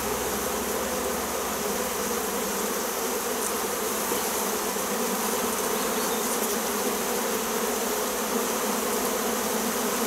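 A large honey bee swarm buzzing as a steady, unbroken hum.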